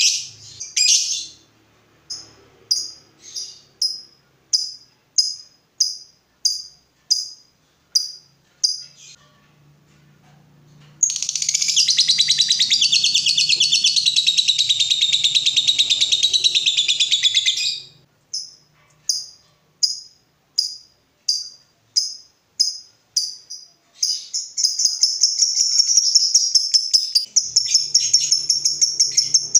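Lovebird calling: evenly spaced short, high chirps about twice a second, then a long, rapid chattering trill (the 'ngekek') lasting about seven seconds. Another run of chirps follows, and a second long trill starts near the end.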